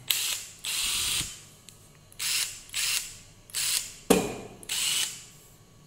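Makita DTW285 cordless brushless impact wrench run free with no load in short trigger pulls, about seven brief bursts of motor and mechanism noise with short gaps between them.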